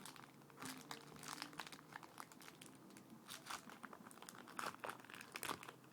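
Faint crinkling of trading-card packaging being handled and opened, in a run of short, irregular crackles.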